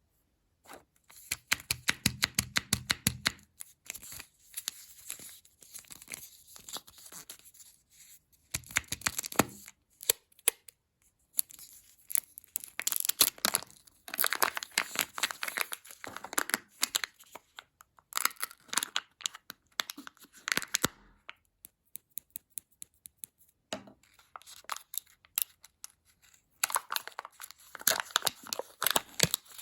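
Kinder egg wrappers being torn open and crinkled by hand, in bursts of rapid crackling with short pauses between.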